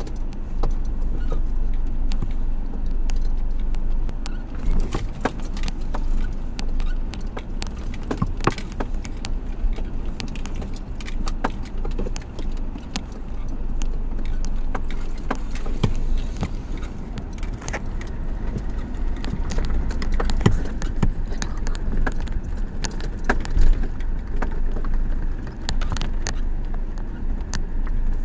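Suzuki Vitara driving over a rutted dirt track, heard from inside the cabin: a steady low engine and road rumble, with frequent sharp clicks and knocks as the cabin rattles over the bumps.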